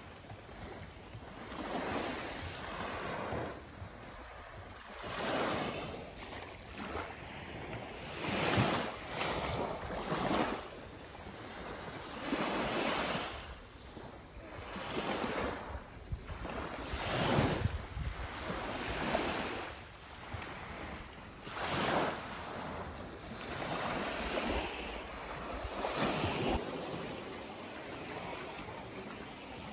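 Small waves lapping and breaking on a sandy shore, surging every second or two, with some wind on the microphone; the surges die away near the end.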